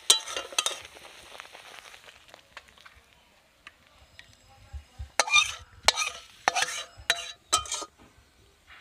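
Metal spatula scraping and clinking against a steel kadai of thick tamarind-tomato chutney, with a light sizzle in the first couple of seconds. A run of loud scrapes follows about five seconds in as the chutney is scraped out into a steel bowl.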